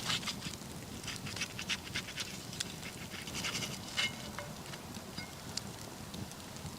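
Irregular crackling and clicking, dense for about the first four seconds and then sparse, over a low steady rumble.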